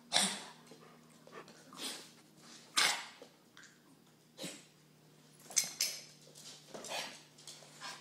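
A dog hacking and dry heaving: a string of short, noisy coughs, roughly one a second at uneven spacing.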